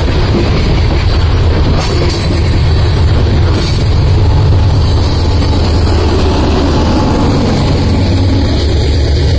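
Freight train of covered hopper cars rolling past close by: a steady, loud rumble of steel wheels on rail with a few knocks from the wheels. Near the end the train's rear Union Pacific diesel locomotive passes, adding a deep engine drone.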